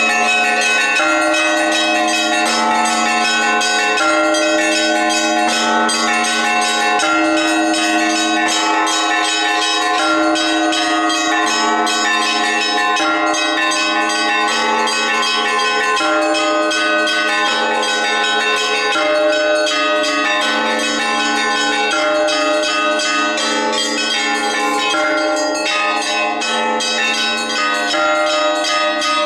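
Orthodox monastery church bells ringing a full peal. Many bells of different pitches sound together without a break: quick strokes on the small, high bells over lower bells that come round again every second or two.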